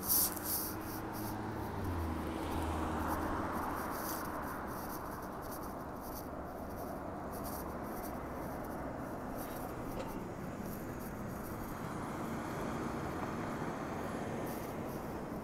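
Road traffic noise: cars driving past, a steady rush of tyres and engines that swells as a vehicle goes by in the first few seconds. A sharp knock sounds right at the start.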